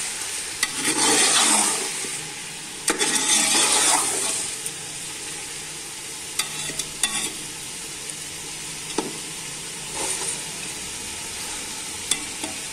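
Chicken pieces sizzling as they brown in oil in a metal pot, stirred with a metal spoon that scrapes through them in two bursts in the first four seconds, then a few short clinks against the pot.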